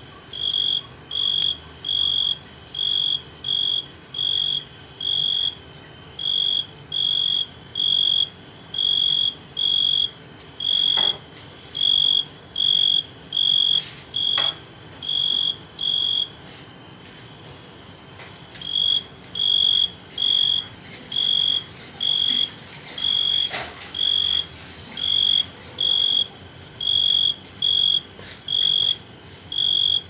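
Tree cricket stridulating with its wings raised: a regular string of short, high-pitched trills, about three every two seconds, with a pause of about two seconds just past halfway.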